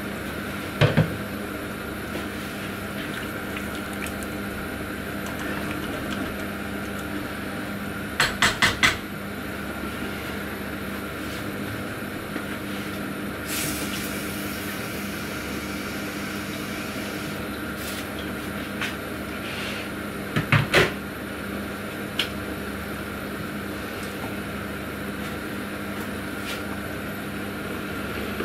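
Steady kitchen hum over a pot of vegetable stew simmering on a gas hob, broken by short clusters of sharp clattering knocks: two about a second in, four quick ones about eight seconds in, and three around twenty seconds in.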